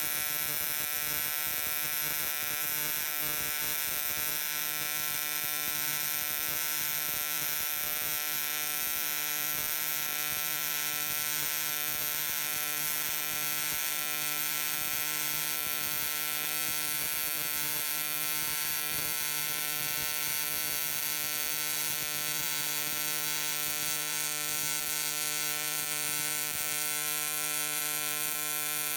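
AC TIG welding arc on aluminium plate, buzzing steadily without a break.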